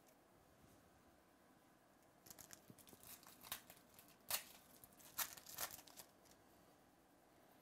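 Foil trading-card pack wrapper torn open by hand: a run of crinkly tearing and crackling that starts about two seconds in and stops about six seconds in, with a few sharper rips in the middle.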